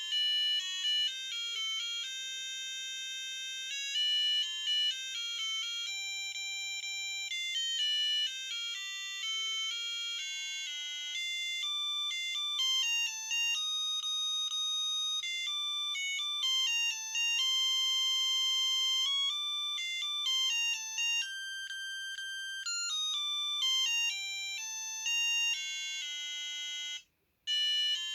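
A Samsung SGH-A300 mobile phone playing a ringtone: a melody of electronic tones, each note clipped short, cutting out briefly near the end before a tune starts again.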